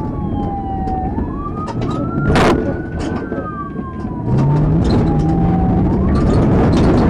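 Police car siren wailing in slow falling-and-rising sweeps over the rumble of a vehicle's engine and tyres. A sharp crack sounds about two and a half seconds in. About four seconds in the engine and road noise get much louder, with the engine revving up as the car drives across a rough field.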